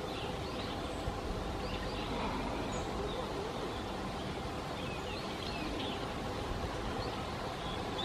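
Steady outdoor background noise with faint, short, high bird chirps scattered through it.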